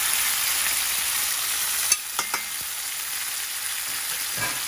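Raw chicken pieces sizzling in hot olive oil in a stainless steel frying pan, a steady hiss. A sharp knock comes about two seconds in, followed quickly by two lighter ones.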